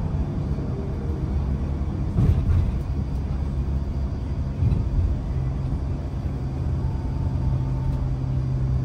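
Coach engine and road rumble heard from inside the cabin as the bus drives along, with a steady low hum settling in about halfway through.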